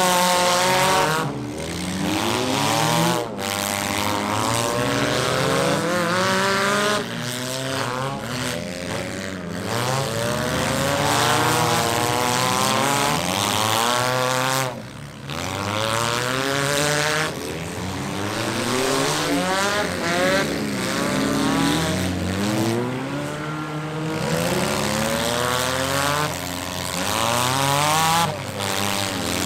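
Several demolition-derby cars' engines revving at once, their overlapping notes rising and falling in pitch as the cars accelerate and back off.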